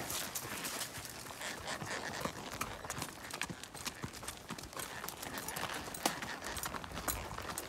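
Horses' hooves clip-clopping on a dirt trail strewn with dry leaves, an irregular run of hoof strikes from more than one horse.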